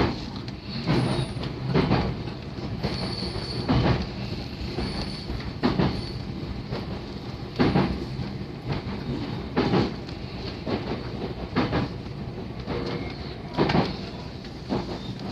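JR 313 series electric train running along the track, its wheels clacking over rail joints about once every two seconds, with a faint high wheel squeal in the first half.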